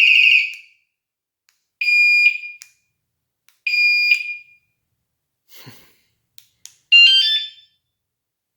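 Electronic bicycle alarm sounding in short, loud bursts: a warbling tone, then two steady high beeps about two seconds apart, then a quick falling run of tones near the end. There are faint clicks between the bursts.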